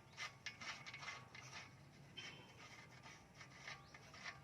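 Faint clicking of a ratchet wrench loosening the ball joint nut on the lower suspension arm. A quick run of clicks in the first second and a half, then sparser clicks.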